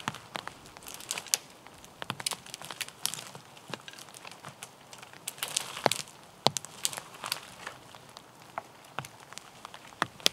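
Dead conifer branches and twigs snapping and crackling as they are pulled free and dragged through brash underfoot. The cracks come irregularly, several of them sharp and loud.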